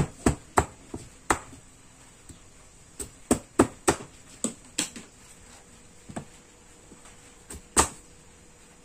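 Knife chopping through a peeled giant taro corm onto a plastic cutting board: about a dozen sharp, irregular knocks, bunched in the first second or so and again in the middle, with a last loud chop near the end.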